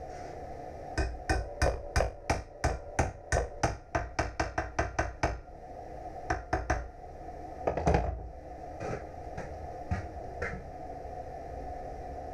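Hammer striking steel: a quick run of about four sharp blows a second for several seconds, then a short group, one heavier blow, and a few spaced single taps.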